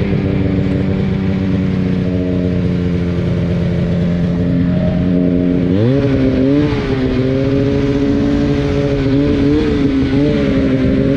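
Ski-Doo Summit X snowmobile's two-stroke 800 engine running under way, its pitch easing down slightly at first; about six seconds in the throttle opens and the engine revs up, then holds with small rises and falls as the rider works the throttle.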